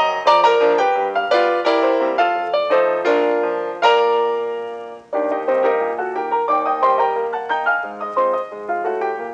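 Background piano music: a light tune of struck notes. About four seconds in, a held chord fades almost to nothing, then the tune picks up again.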